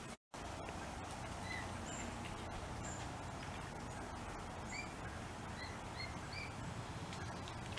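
Mute swan cygnets peeping: about eight short, high, whistled calls, spaced irregularly, over a steady background hiss. The sound drops out for a moment just after the start.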